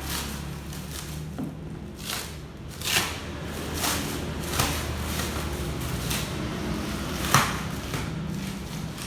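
Packaging of a boxed welding machine being handled: irregular knocks, scrapes and rustles, the loudest about three seconds in and again near the end, over a low steady hum.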